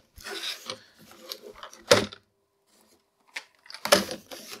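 18650 lithium-ion cells clattering against each other in plastic tubs as they are handled and the tubs are shifted about. The sound comes in irregular bursts of clicks, with a sharp knock about two seconds in and a busier rattle near the end.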